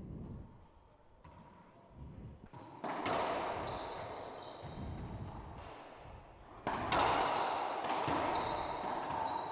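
Racquetball rally: the rubber ball cracked by racquets and smacking off the court walls, a string of sharp hits starting about three seconds in and coming faster near the end.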